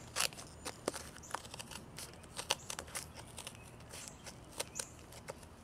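Hand shears cutting through a cured fiberglass laminate of chopped-strand mat and cloth: a run of irregular sharp snaps and crackles as the blades bite through the glass fibres.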